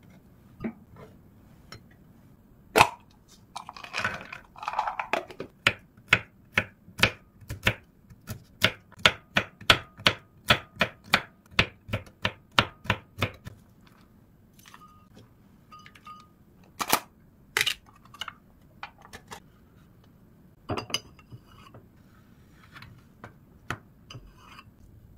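A chef's knife chops walnuts on a wooden cutting board in an even run of sharp strikes, about three a second. Later come a few scattered sharp clicks of a metal spreader against a glass mug as cream cheese is scooped in and stirred.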